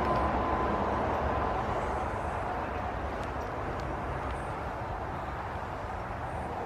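Steady background noise, a low rumble with hiss, slowly fading, with no distinct events.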